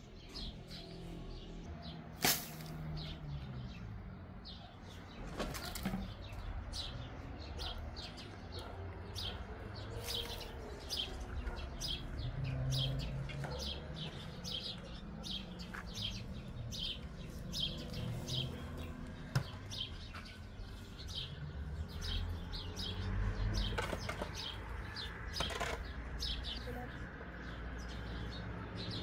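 Small birds chirping over and over, short high chirps about two or three a second throughout. A few sharp knocks and scrapes of a long-handled digging tool working soil stand out, a couple of them near the end.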